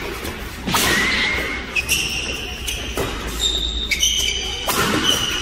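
Badminton rally: racket strings striking the shuttlecock several times with sharp cracks, the hardest being a smash near the end, amid short high squeaks of shoes on the court floor.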